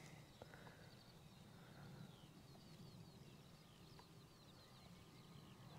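Near silence, with faint birdsong: a run of short, high chirps repeating through most of the stretch.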